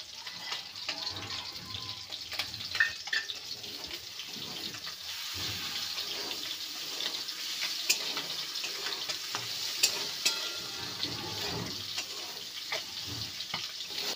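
Shredded spiny gourd frying with a steady sizzle in a kadai as a spatula stirs tomato sauce through it, with a few sharp clicks and scrapes of the spatula against the pan.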